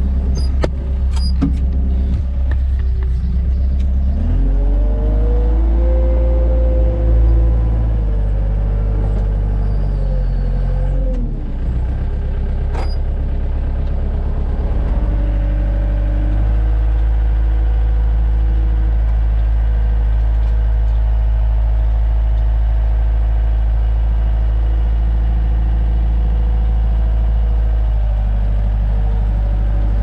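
Wheel loader's diesel engine running, heard from the cab: it revs up and down a few times in the first dozen seconds, then runs steadily.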